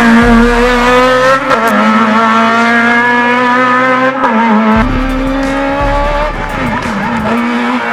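Naturally aspirated 1.6-litre four-cylinder engine of a Honda Civic EG hill-climb race car running hard at high revs. Its pitch climbs steadily, then drops back and climbs again, once about a second and a half in and again about four seconds in.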